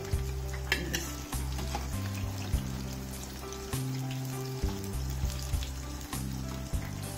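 Chicken pakoras deep-frying in a pan of hot oil, sizzling steadily, with short clicks and scrapes of a metal slotted spoon as they are turned and lifted out. Low held notes of background music shift in pitch underneath.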